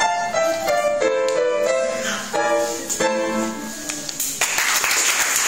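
Upright piano played solo, its last notes ringing out about four seconds in as the piece ends. Audience applause breaks out right after.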